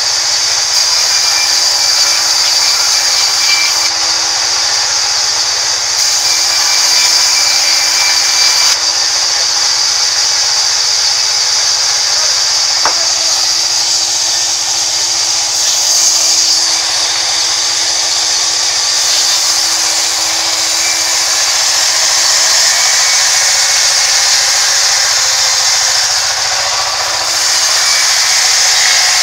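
Sawmill band saw running and cutting through rain tree timber: a loud, steady high-pitched whine and rasp of the blade in the wood, unbroken throughout.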